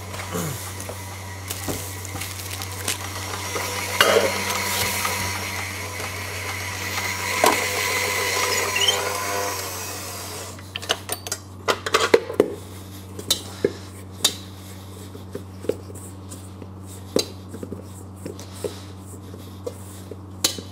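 KitchenAid Heavy Duty stand mixer running, its dough hook turning through a very dry brioche dough, with a few knocks. The motor stops about halfway through. After that come scattered light clinks and taps on a stainless steel bowl.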